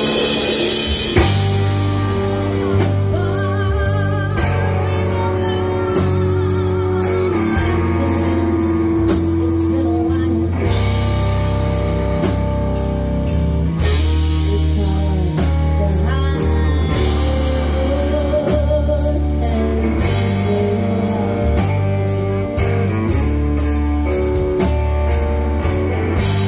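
A live band playing through a PA: electric guitar, bass guitar, drum kit and keyboard, with a woman singing at the microphone for part of it.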